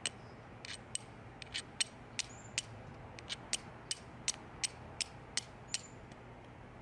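Carbon-steel fire striker struck again and again against the edge of a hand-held rock, about twenty sharp clicks at two or three a second, stopping about six seconds in. It is throwing sparks onto the blackened end of a matchlock wick to catch an ember.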